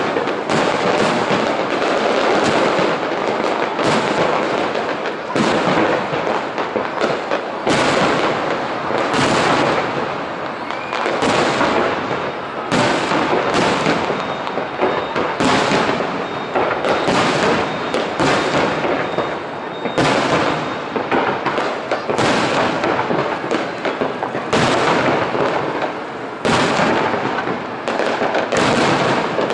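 Aerial firework shells bursting in a dense, continuous barrage: sharp bangs follow one another every second or so over a steady din of noise.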